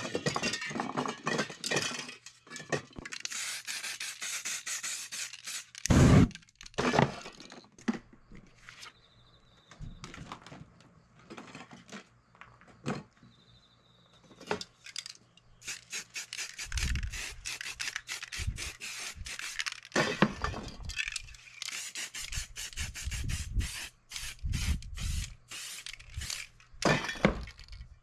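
Spray paint cans hissing in repeated bursts, mixed with knocks, clicks and scraping as cans and tools are handled. A loud knock comes about six seconds in.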